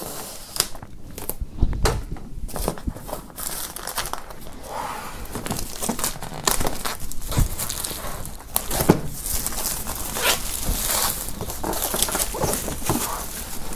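Plastic shrink-wrap film being slit at its weld seam and pulled and crumpled off a cardboard box: crinkling and tearing, with many short sharp crackles.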